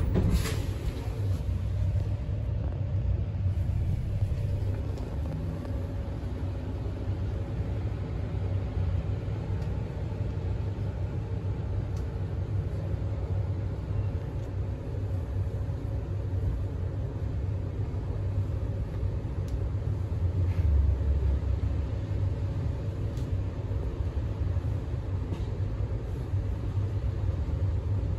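Cabin ride noise inside a moving Scania K320UB hybrid bus: a steady low rumble from the drivetrain and road, with a faint steady hum over it. The rumble swells briefly about two-thirds of the way through, and a few light rattles and clicks sound now and then.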